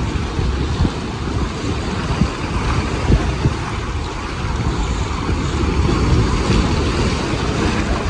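Sea surf surging and washing through channels between black basalt rocks, a steady rushing hiss, with wind rumbling and buffeting on the microphone.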